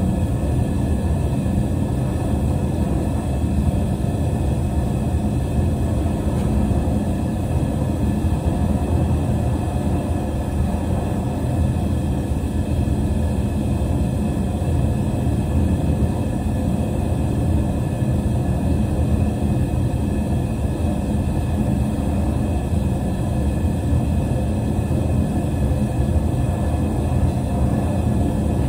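Small homemade forge running, a steady low rumble that holds without change while a Damascus blade heats in the fire for hardening.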